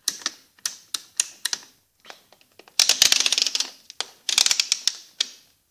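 Program selector dial of a Miele W715 washing machine being turned, its detents clicking: single clicks a few times a second at first, then two quick rattling runs of clicks about three and about four and a half seconds in.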